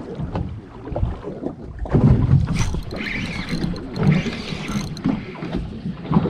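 Wind buffeting the microphone and water sloshing against a boat's hull, with a few small knocks.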